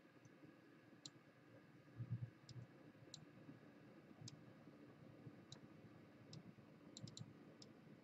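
Faint computer mouse clicks over near-silent room tone: about ten scattered single clicks, with a quick run of three about seven seconds in.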